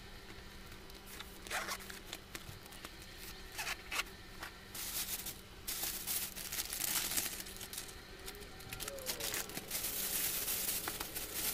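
Thin plastic shopping bag crinkling and rustling as hands dig through it, in irregular bursts that are loudest about five to seven seconds in and again near the end.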